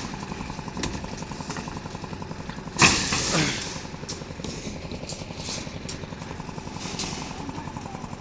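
An engine running steadily with a fast, even chug. Over it come a few sharp clicks and knocks, and one loud clattering hit about three seconds in.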